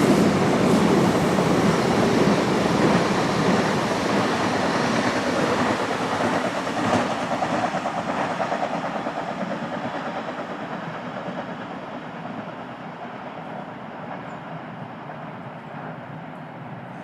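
DB Class 425 electric multiple unit running past on the rails. Its wheel and running noise is loud at first and fades steadily as the train moves away.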